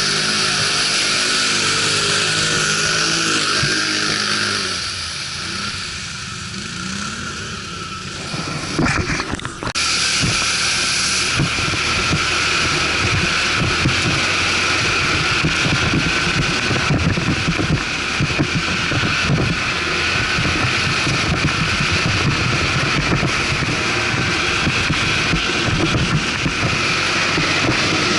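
ATV engine running while riding. A steady engine note for the first few seconds, then quieter for a few seconds, then from about nine seconds in louder and rougher, with many small knocks and rattles.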